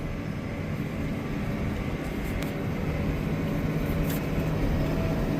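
Farm tractor engine running steadily, a low even hum that grows slightly louder.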